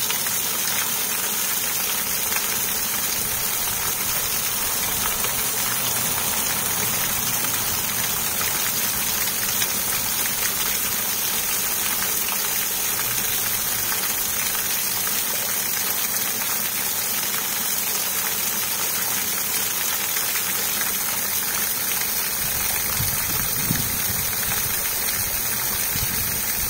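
Garden pond waterfall splashing steadily onto the water surface, a constant rain-like hiss of falling spray.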